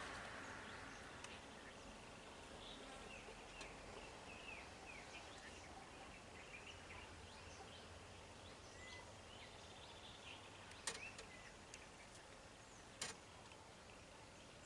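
Faint outdoor ambience with scattered short bird chirps, and two sharp clicks about two seconds apart in the second half.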